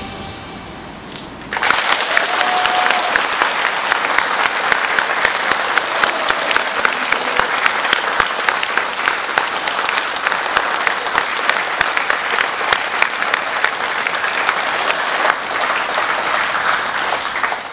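Audience applauding: dense clapping that starts suddenly about a second and a half in and carries on steadily, with music fading out just before it.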